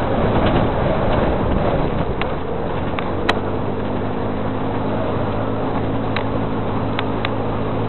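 Steady engine hum under a noisy rush, with a few sharp clicks.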